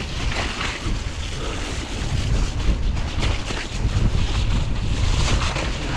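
Wind buffeting the microphone of a mountain bike on the move, with a low rumble that grows louder about two seconds in, and scattered clicks and rattles from the hardtail bike and its tyres on the rough dirt trail.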